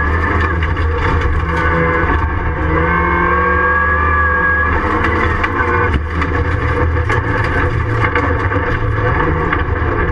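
Ford Fiesta Mk7 rallycross car's engine at full race effort, heard from inside the stripped cabin: a loud steady low drone whose pitch rises and falls several times through the gears, with scattered sharp knocks.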